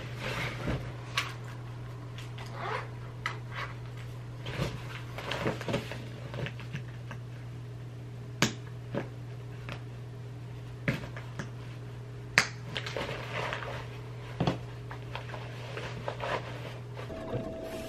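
Rustling and scattered clicks and knocks of a canvas messenger bag being packed, a laptop in a fabric sleeve slid in and the flap and straps handled; two sharp clicks stand out. A steady low hum runs underneath and stops near the end.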